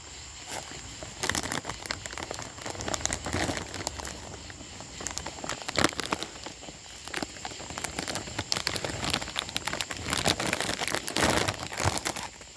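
Plastic Cheetos snack bag crinkling and crackling in irregular bursts as it is opened and handled.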